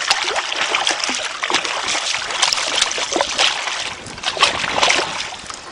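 Water splashing again and again as a wels catfish thrashes at the surface around a fishing float, the sign of a catfish taking the float-fished bait.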